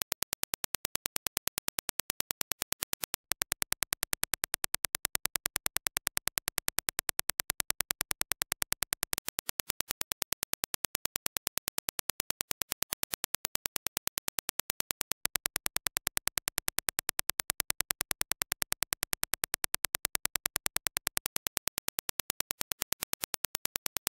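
Reference Dirac impulse test signal: a rapid, evenly spaced train of sharp single-sample clicks. The level steps up and down in blocks of about six seconds.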